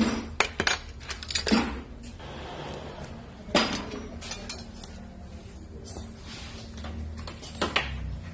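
Metal automatic-transmission parts (gears and valve body) clinking and knocking against each other and the bench as they are handled, in irregular sharp clinks, a few louder knocks standing out.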